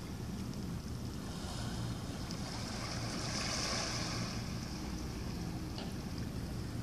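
Small waves washing against a rocky shore, the hiss swelling and fading once about three and a half seconds in, over a steady low rumble.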